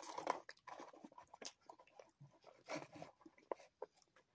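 A person eating a spoonful of curry from a ration pouch: chewing and mouth sounds with small clicks, and two louder bursts, one at the start and one about three seconds in.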